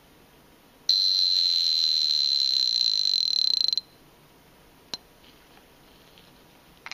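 Bucherer Swiss mechanical alarm pocket watch going off: a high, steady buzzing ring for about three seconds that cuts off suddenly. A single sharp click follows about a second later, and a fainter click near the end.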